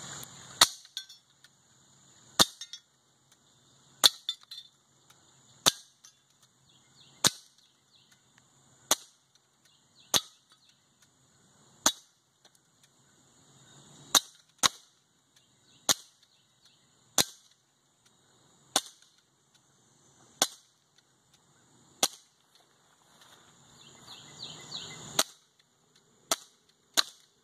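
Crosman BB gun firing shot after shot, a sharp crack roughly every second and a half, about eighteen shots in all.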